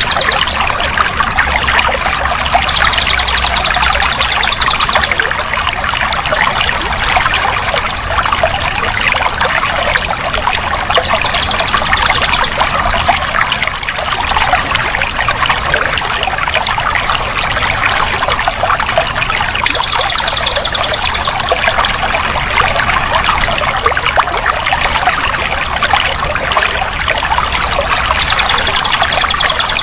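Running water pouring and trickling steadily. A high trilling sound, one to two seconds long, comes back about every eight seconds, four times.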